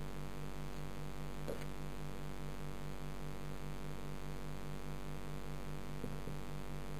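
Steady hum of an aquarium filter pump heard underwater, with a fast, even pulsing in it and a couple of faint clicks.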